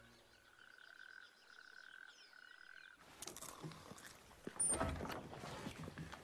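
A trilling animal call repeated in short pulses for about three seconds. It then changes abruptly to rustling and knocks, with one loud thump about five seconds in.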